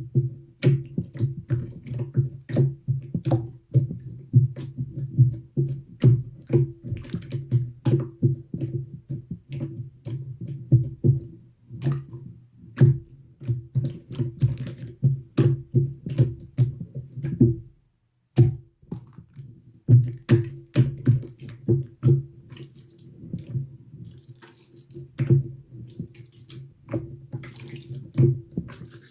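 Slime being squished and poked, giving rapid, uneven wet clicks and pops over a steady low hum.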